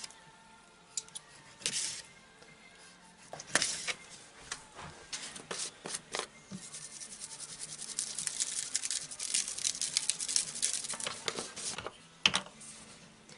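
Kitchen handling sounds: a knife clicking and scraping against a paper plate while slicing deer heart. Then a seasoning bottle is shaken over the meat in a quick run of rattling ticks lasting a few seconds, and there is one sharp clack near the end.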